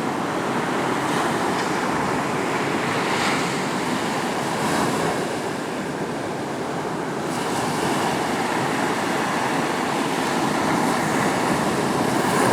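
Small ocean surf breaking and washing up the beach: a steady rush that swells and eases.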